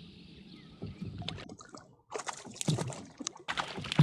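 Water sloshing and splashing around a small fishing boat, with irregular knocks and clicks, loudest near the end.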